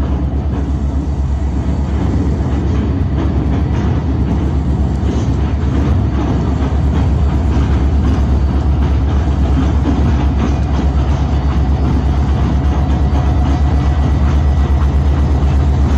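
Canadian Pacific diesel freight locomotive crossing a steel truss bridge: a steady, pulsing low rumble that grows slowly louder as it approaches.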